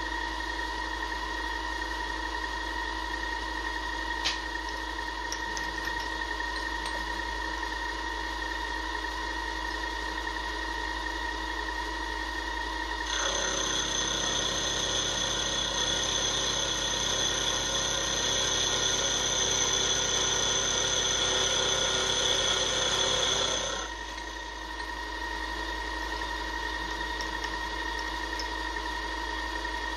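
Milling machine spindle running with a steady whine while a 12 mm roughing end mill cuts a slot in a cast iron block. About halfway through, the sound gets louder and harsher with added high-pitched whines for about ten seconds, then drops back to the steadier whine.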